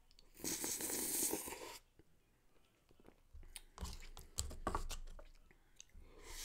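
Close-up mouth sounds of eating a chocolate Frosty off a plastic spoon. There is a slurp about half a second in, then a run of small clicks and scrapes as the spoon scoops in the paper cup, and another slurp starting near the end.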